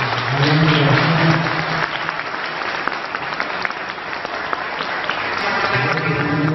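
Audience applauding, a full round of clapping that eases off near the end.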